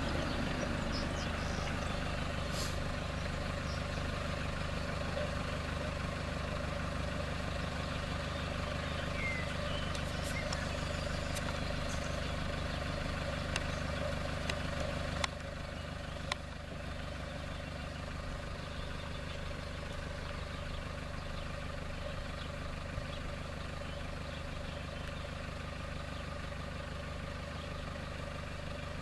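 First-generation electronic level-crossing bell sounding steadily while the crossing is closed, over the low hum of a car engine idling at the crossing. The engine hum drops about halfway through.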